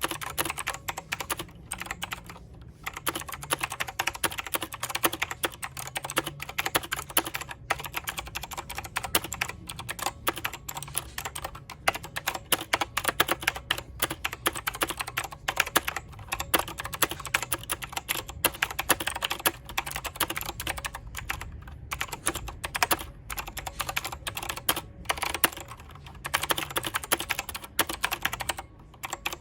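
Mechanical keyboard being typed on quickly and continuously, a dense stream of key clicks and clacks with a few short pauses.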